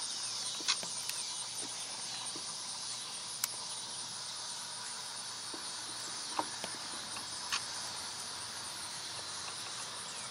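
Steady, high-pitched chorus of field crickets and other insects. Four short, sharp clicks stand out as the loudest sounds.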